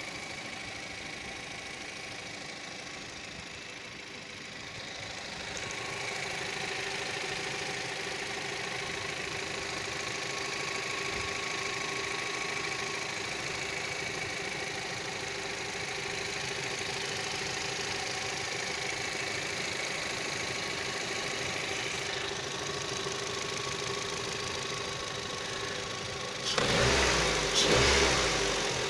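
Engine running steadily about 150 km after a major overhaul, while it is still being run in. It becomes louder and rougher near the end.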